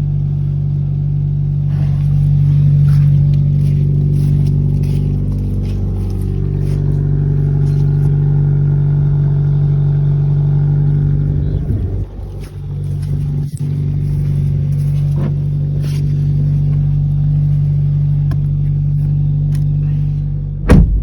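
Kia Pro Ceed GT's 1.6-litre turbocharged four-cylinder petrol engine idling steadily just after a cold start, through the stock exhaust. The sound briefly becomes uneven about twelve seconds in, and a loud knock comes near the end.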